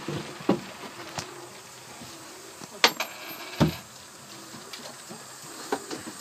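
Scattered sharp knocks and clicks, the two loudest close together about three seconds in, over a steady hiss of rain.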